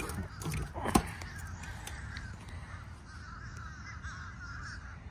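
Two sharp knocks in the first second from handling the freshly cemented PVC pipe at the well pump's inlet, the second the loudest, then birds calling steadily in the background with a quick run of short repeated notes.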